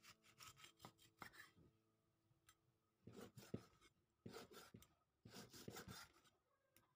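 Kitchen knife cutting beef tripe on a wooden cutting board: short runs of scraping, rasping strokes of the blade against the board, in about four bunches.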